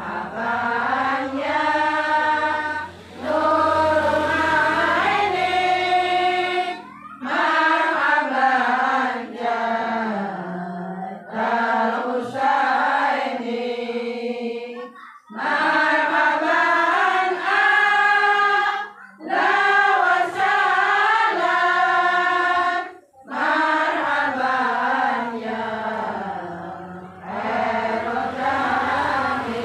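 A group of voices chanting an Arabic sholawat in unison, in long, melismatic phrases separated by short pauses.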